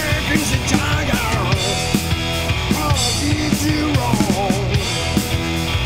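Live rock band playing: an amplified cigar box guitar and a drum kit with cymbals, with a man's voice singing over them.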